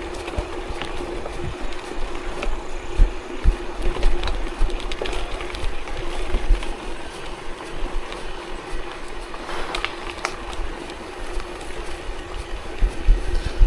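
A vehicle travelling along an unpaved forest road: a steady mechanical hum under uneven low bumps and rumble, with scattered rattles.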